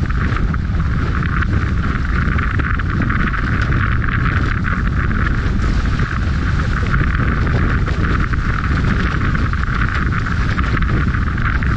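Wind buffeting the boat-mounted microphone in strong wind, a steady heavy rumble, over the rushing hiss of water and spray off the hulls of an F16 Viper catamaran sailing fast.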